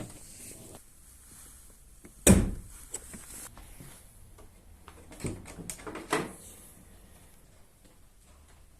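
A few knocks and clunks, as of something being handled and set down or shut: one heavy thump about two seconds in, then several lighter clicks and knocks around five to six seconds.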